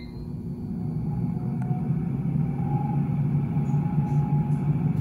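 Ninja DualZone air fryer's fan running just after being started: a steady low hum that builds over about the first second and then holds even.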